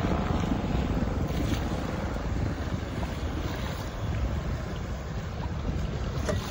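Wind buffeting the microphone in a steady low rumble, over the wash of choppy water.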